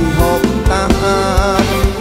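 Isan pong lang band playing live: a drum kit beat under bass and a wavering melody line.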